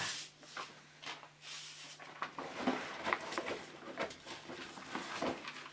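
Sheets of drawing paper rustling and sliding as they are handled and laid out on a wooden floor: a run of short, irregular rustles and soft slaps, over a low steady hum.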